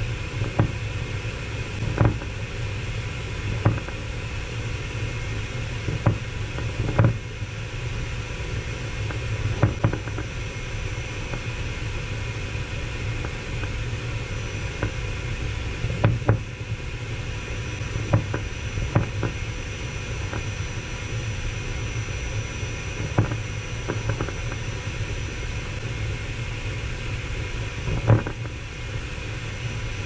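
Vacuum cleaner running steadily, its suction drawn through a long clear plastic tube, with about a dozen short irregular thumps as craft pom-poms are sucked into the tube.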